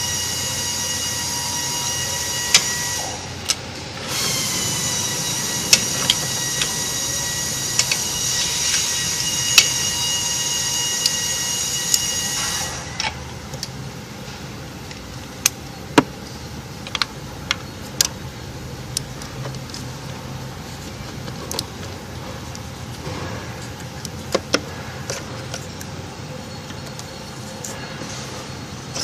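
A small electric motor, such as a hand-held power tool, whirring at a steady high pitch in two runs: the first stops about three seconds in, and the second starts about four seconds in and stops about twelve and a half seconds in. After that come scattered sharp clicks and clinks of metal tools.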